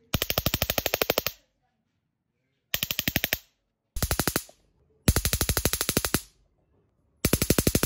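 Homemade taser's high-voltage converter module arcing across the prongs of a repurposed phone-charger plug. It gives short bursts of rapid electric snapping, about fifteen snaps a second. There are five bursts with silent gaps between them as the push button is pressed and released, the last starting near the end.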